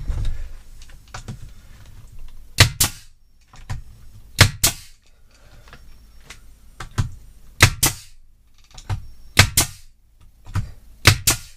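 Pneumatic 18-gauge brad nailer firing nails up through shiplap ceiling boards. There are five sharp double cracks, each shot followed at once by a second snap, a second or two apart, with a couple of fainter clicks between.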